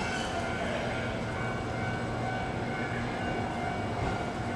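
Shinano Railway SR1-series electric train pulling slowly into a station platform: a steady running hum with a few faint steady tones in it.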